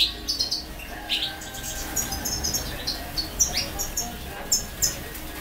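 Young European goldfinches chirping: short, high twittering calls, a quick run of them right at the start and then single calls and little clusters every half second or so.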